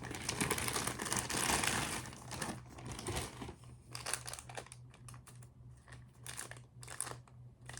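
Plastic wrapping crinkling and rustling as a boxed action figure is handled in its plastic cover, densest for the first two seconds, then thinning to scattered crackles and small clicks.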